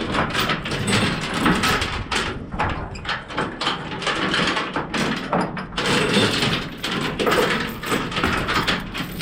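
Irregular clattering and scraping of a cargo tie-down strap and its metal hooks being pulled tight over the load.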